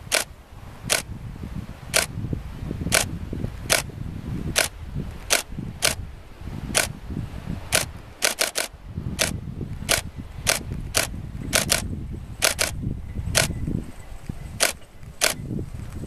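Camera shutter clicking again and again as the train is photographed, at uneven intervals of roughly a second, several times in quick pairs or triples, over a low rumble.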